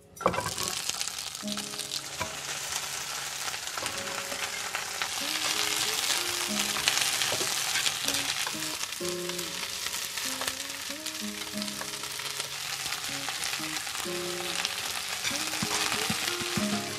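Cut leafy greens sizzling in a hot frying pan, a steady crackling hiss that starts abruptly at the outset. A soft melody plays underneath.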